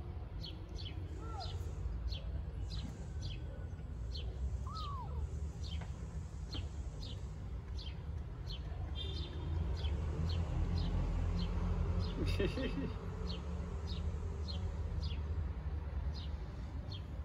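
A bird chirping over and over at an even pace, about three short high chirps every two seconds, over a steady low background rumble.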